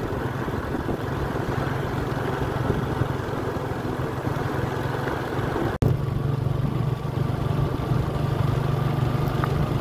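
A vehicle's engine running steadily while driving on a dirt road, with road and wind noise over it. The sound drops out for an instant about six seconds in, then carries on unchanged.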